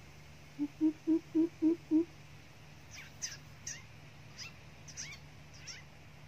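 Greater coucal giving its deep, hollow hooting call: a run of six low, evenly spaced hoots, about four a second. It is followed by a series of short, high, falling chirps.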